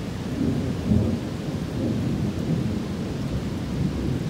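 Thunder rumbling low, swelling about half a second in and loudest about a second in, then rolling on over the steady hiss of heavy rain.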